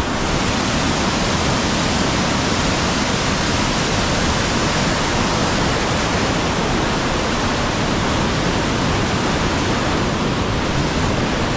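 White water pouring through a river dam's spillway: a loud, steady, unbroken rush.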